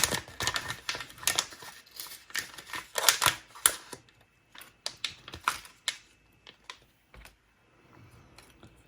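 Quick small clicks and rattles of small parts and packaging being handled on a workbench, dense for about four seconds, then a few scattered clicks that die away.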